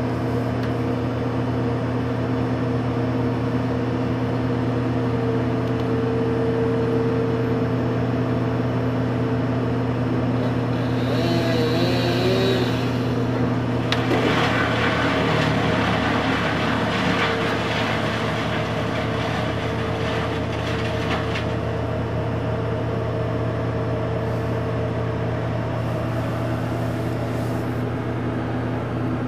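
Bucket truck's engine running steadily, heard through a window pane. For several seconds around the middle, a harsher, higher-pitched noise rises over it.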